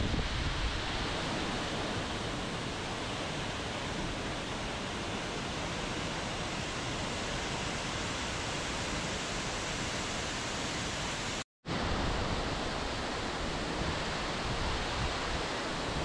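Water pouring down waterfall cascades, a steady, even rush. The sound drops out completely for a split second about two-thirds of the way through.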